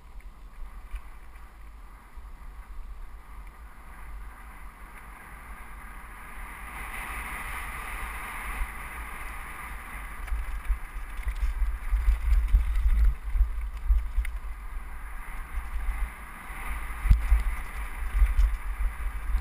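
Wind buffeting a helmet-mounted camera's microphone, with tyres rattling over loose gravel and rocks. It grows louder from about six seconds in, and sharp jolts come through in the second half.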